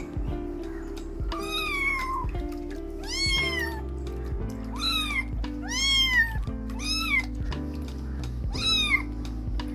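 Kittens meowing: about six high-pitched calls, each rising and then falling, over steady background music.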